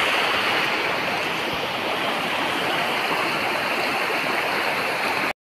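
Floodwater rushing across a submerged road, a steady loud rush of water that cuts off suddenly near the end.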